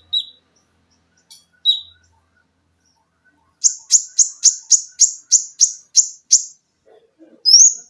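Konin songbird singing: two short, high single notes, then a fast run of about ten sharp, high notes at about four a second, and a rising shrill whistle near the end.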